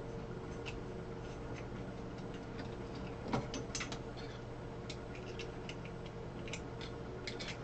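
Scattered light clicks and taps of plastic 3D-printer extruder parts being handled and fitted together, with one louder click about three and a half seconds in, over a steady low hum.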